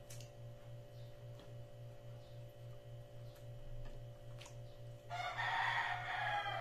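Faint, scattered clicks of hand-eating and chewing over a steady low hum; about five seconds in, a loud pitched animal call lasting about a second and a half.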